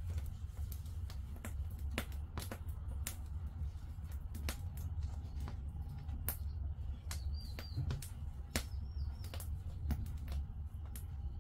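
Firewood burning in an agungi firebox, crackling with irregular sharp pops and snaps over a steady low rumble.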